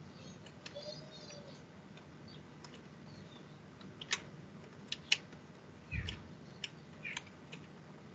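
Faint, scattered computer clicks over a quiet video-call line with low background hiss, and a soft thump about six seconds in.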